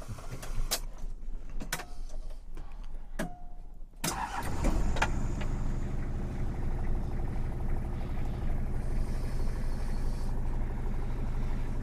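1992 Toyota Hiace's 2.4-litre diesel engine being started: a few clicks, then it cranks briefly and catches about four seconds in, settling into a steady idle.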